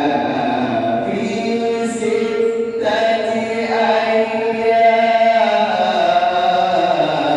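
A man reciting the Quran in a slow melodic chant, drawing out long held notes. A new phrase begins about three seconds in, and the melody falls near the end.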